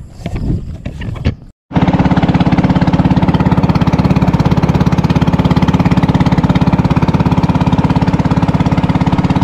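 A few irregular knocks and scuffs, then, after a short break about a second and a half in, a small engine running steadily and loudly with a fast, even chugging beat.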